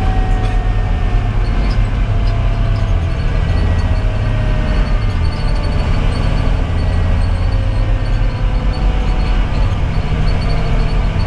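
Cab noise in a 2010 Pierce Velocity fire engine under way: its 470 hp Detroit Series 60 diesel runs steadily over road noise, with a faint whine that slowly falls in pitch.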